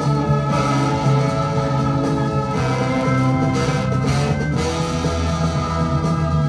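Instrumental rock music: sustained organ chords over bass and guitar, with no vocals.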